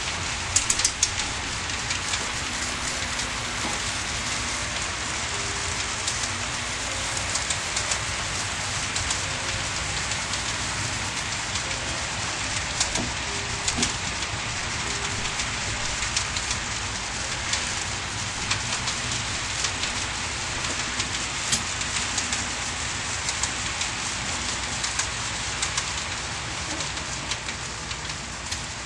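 HO scale model train of 50 cars running on its track: a dense, steady clatter of many small wheels clicking over the rail joints, with a few louder clicks about a second in.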